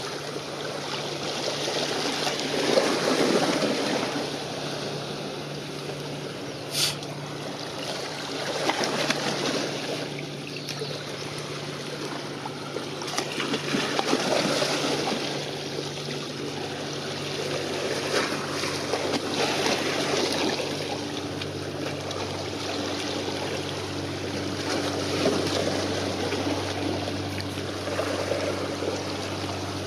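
Small choppy waves lapping and washing close by, rising and falling every few seconds, over a steady low mechanical hum that drops in pitch about two-thirds of the way through. A single sharp click sounds about seven seconds in.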